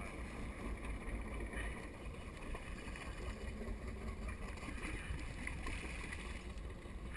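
Steady low rumble of wind and water noise aboard a boat at sea, with some light splashing near the end from a hooked shark thrashing at the boat's side.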